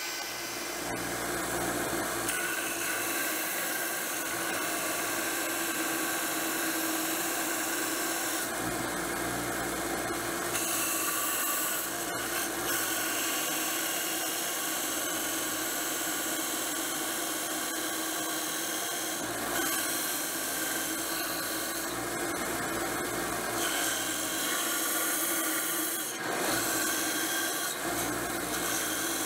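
Benchtop band saw running steadily, its blade cutting through a piece of softwood fed by hand.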